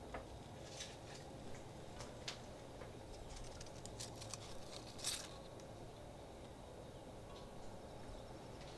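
Faint crisp rustles and light ticks from dry bay leaves being handled and dropped into a pot of water, the loudest cluster about five seconds in, over a low steady hum.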